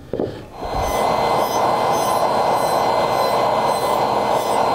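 A knock as the wooden bowl blank is set into the jig. Then, from about half a second in, a table saw blade runs and cuts the bowl blank as it is turned by hand in the jig, together with a shop vac pulling the sawdust off. The sound is a loud, steady grinding whir.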